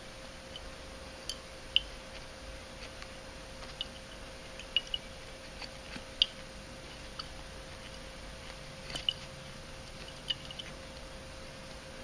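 Scattered light clicks and ticks of a can tap valve's thumb screw and fittings being turned by hand, about a dozen spread irregularly, over a faint steady hum.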